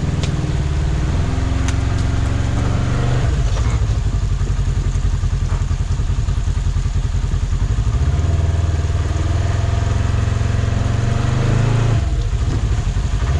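Polaris RZR XP1000's twin-cylinder engine running and revving under load while crawling over rocks, its pitch rising and falling a few times, with a couple of sharp knocks in the first two seconds.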